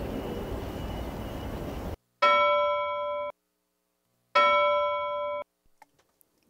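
Steady background noise cuts off abruptly about two seconds in. Then two identical bell-like chime tones ring, each about a second long, with silence between them.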